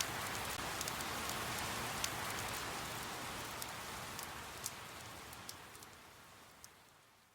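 Gentle rain falling, a steady patter with occasional distinct drops ticking, fading out gradually toward the end.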